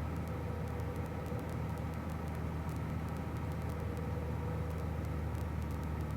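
Steady drone of a 1966 Cessna 172G's six-cylinder Continental O-300 engine and propeller, heard from inside the cabin during final approach.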